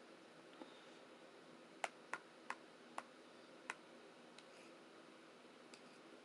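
A bowl clinking under quick, sharp taps, five of them between about two and four seconds in, over a faint steady hiss.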